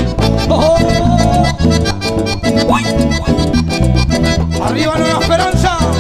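Live band playing an instrumental passage of Latin dance music: an accordion carries a melody with sliding notes over a steady bass line and percussion.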